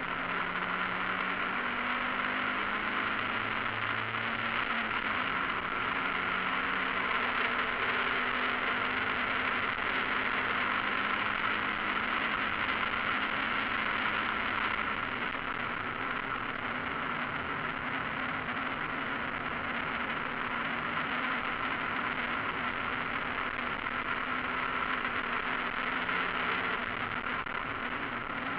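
In-cockpit sound of a Mazda MX-5 race car at speed: its four-cylinder engine runs under load beneath a steady rush of wind and road noise. The engine pitch shifts over the first few seconds, then holds fairly steady.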